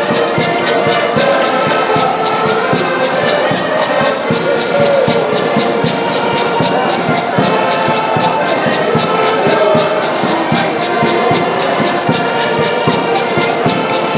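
Live band music with brass instruments over a steady, fast drum beat.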